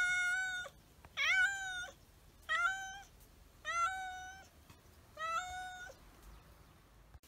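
White calico cat meowing over and over: five calls a little over a second apart, each rising at the start and falling away at the end. The cat is hungry and begging for food.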